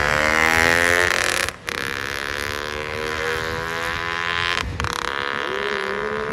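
Tuned motorcycle engine revving hard as the bike accelerates away, its note climbing, with two short breaks in the sound about one and a half and four and a half seconds in.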